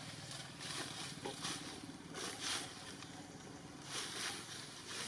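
A small engine running steadily at low revs, a low pulsing hum, with several soft swells of rustling hiss over it.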